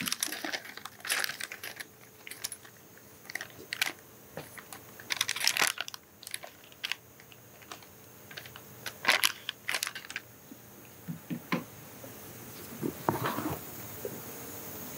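Irregular handling noises: paper rustling and crinkling, scattered clicks and knocks, and footsteps on a hard floor.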